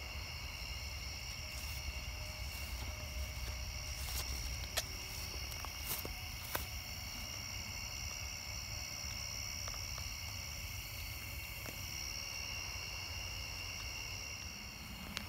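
Chorus of night insects, a steady high trilling in several pitches, with a few sharp clicks about five to seven seconds in.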